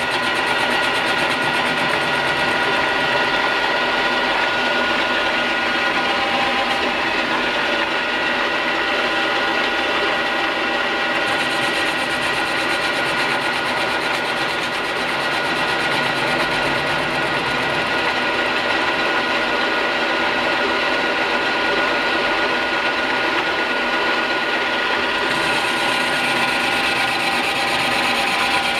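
CNC-converted E1N metal lathe running, its drive and gearing giving a steady whine made of several fixed tones over a mechanical rattle as the tool turns the workpiece. A higher hiss comes in about a third of the way in, drops away, and returns near the end.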